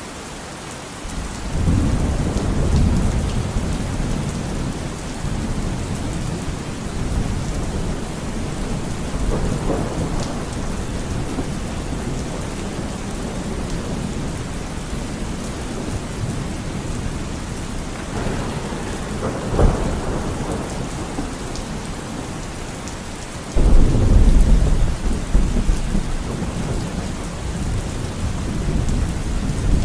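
Steady rain with rolling thunder. A rumble builds about two seconds in, a sharper thunderclap comes about two-thirds of the way through, and a loud, deep rumble starts suddenly near the end.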